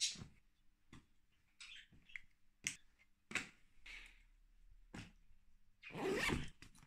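Packing sounds from a canvas duffel bag: scattered soft clicks and rustles, then, near the end, the bag's zipper pulled shut for about a second.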